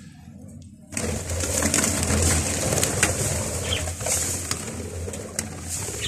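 Budgerigars chattering and chirping, with a dense rustling noise underneath that starts suddenly about a second in.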